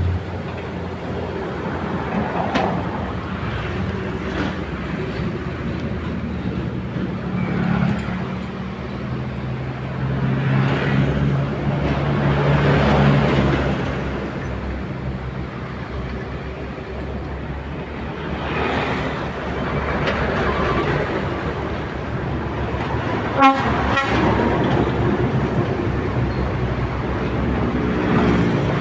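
Excavator's diesel engine running under load, its pitch shifting and swelling as it works, with a single sharp knock about three-quarters of the way through.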